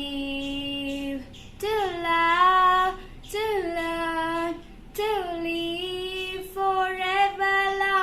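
Children singing together with a woman's voice: the closing phrases of the school anthem, sung as a few long held notes.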